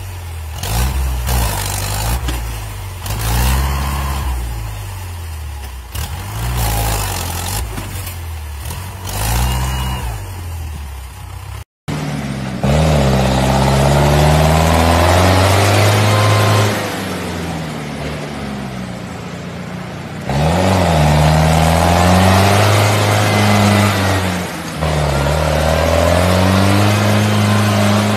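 Wheeled farm tractor's engine revving up and down again and again while the tractor sits stuck in deep mud. After a sudden cut about twelve seconds in, another tractor's engine runs louder under heavy load, its revs rising and falling as it climbs a muddy slope, dropping back for a few seconds midway.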